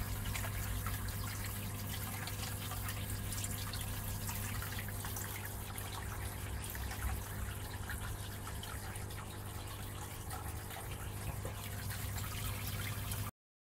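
Water trickling and dripping steadily into a shallow fish tank over a low, steady pump hum. It cuts off abruptly near the end.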